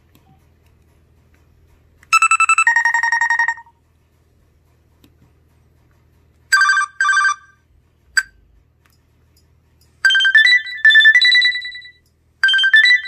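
LG enV3 (VX9200) cell phone playing short ringtone and alert previews through its small speaker, one after another with gaps between. A two-note chime comes about two seconds in, then a double beep, a click, and a short stepping melody from about ten seconds in that starts over near the end.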